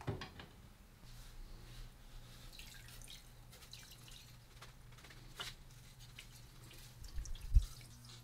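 Water sloshing and dripping in a glass tank as a rusty cast-iron vise part hung on a wire is lowered in for electrolysis, followed by faint scattered drips and ticks. A low steady hum comes in about a second in, and one heavy low thump sounds near the end.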